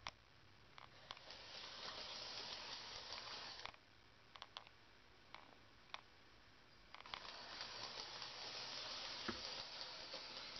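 Three-rail toy train locomotive running on tinplate track, a steady high-pitched whir of its motor and wheels. It cuts out about three and a half seconds in as the track power is switched off, several small clicks come during the pause, and it starts running again about seven seconds in; cutting and restoring the power cycles the Lionel reversing unit.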